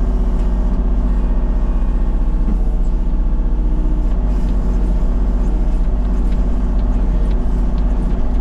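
Kubota KX033-4 mini excavator's diesel engine running at a steady speed, heard from the cab, while the boom and bucket dig out a clump of briar roots.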